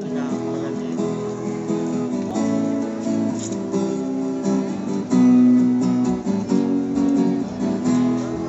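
Music on strummed acoustic guitar, starting abruptly out of silence, with chords changing every half second or so. It gets louder about five seconds in.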